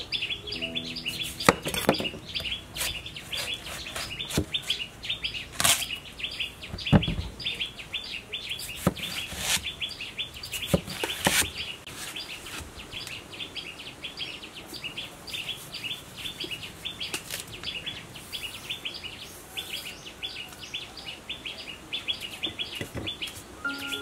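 A cleaver cutting through watermelon and knocking on a wooden chopping block, with several sharp chops mostly in the first half. A fast, steady chirping runs throughout.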